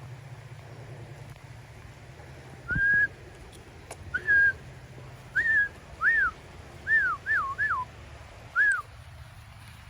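A person whistling about eight short notes, each sliding up and then falling, as in calling dogs over.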